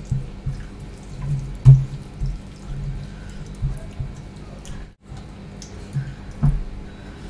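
Close-miked wet eating sounds: mouth smacking and chewing of rice and curry, with fingers squelching rice on a steel plate. The smacks come every second or so, the loudest about two seconds in.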